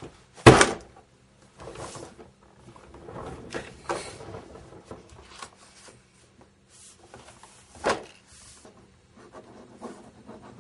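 A thick book put down on a desk with a thump about half a second in, followed by paper rustling as its pages are handled and turned, and a second knock near eight seconds.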